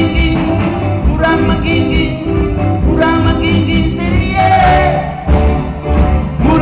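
Live band playing: a lead vocal over electric guitars, bass, drums and keyboards, with a steady drum beat.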